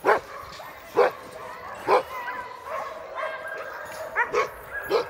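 A yard full of sled dogs barking and yipping. One close dog gives a loud bark about once a second at the start and again in a quick cluster near the end, while other dogs keep up high, wavering cries behind.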